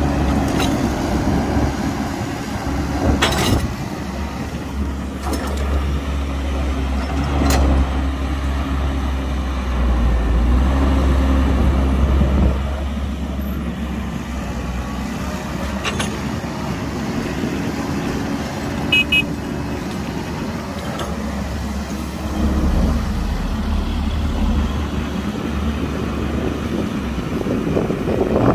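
Heavy earthmoving machinery's diesel engine running steadily, working harder for a few seconds about eight seconds in, with a few sharp knocks over it.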